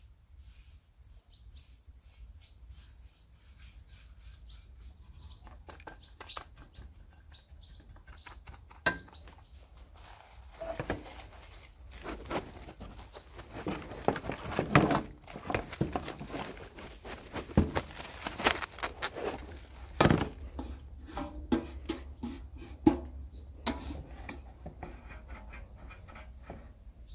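Bristle paintbrush stroking and dabbing liquid onto rusty sheet metal, followed in the middle by plastic cling film crackling and rustling as it is pulled and wrapped tightly around the part, then brush strokes again near the end.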